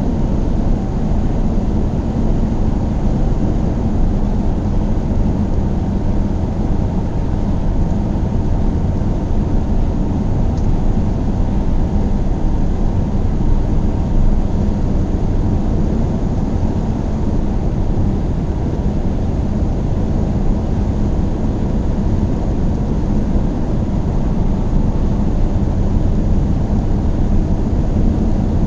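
Car driving at a steady speed: a constant low rumble of engine and tyres on the road.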